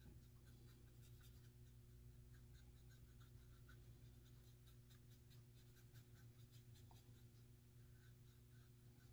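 Faint, quick scratchy strokes of a small paintbrush spreading craft paint across a thin wooden piece, several strokes a second, over a low steady hum.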